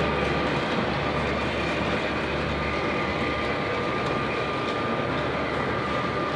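G-scale model freight train rolling past: a steady rumble and rattle of the cars and wheels on the track. A low hum drops out about three seconds in as the locomotives pass, and a thin steady whine runs on after that.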